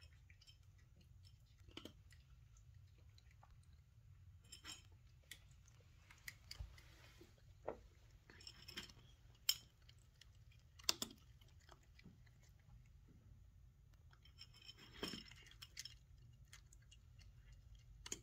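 A Maine Coon cat eating from a stainless steel bowl: faint, irregular chewing crunches with occasional sharp clicks, a few louder ones near the middle.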